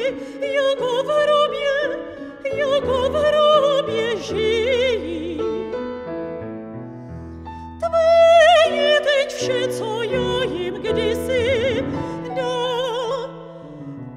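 Soprano singing an art song with wide vibrato over Petrof grand piano accompaniment. About six seconds in, the voice drops away while piano notes fade. Near eight seconds she comes back in loudly on a held high note.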